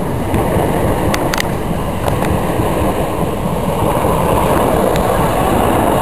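First Capital Connect Class 365 electric multiple unit passing close by: a steady, loud rumble and rush of wheels on rail, with a few sharp clicks about a second in.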